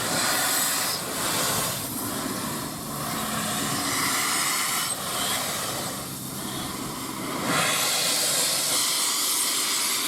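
Steam locomotive hissing loudly as steam escapes, a dense continuous hiss that swells and eases unevenly.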